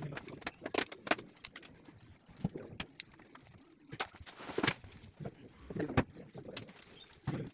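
Irregular knocks, taps and clicks of hand-tool work and tools being handled on a hard floor.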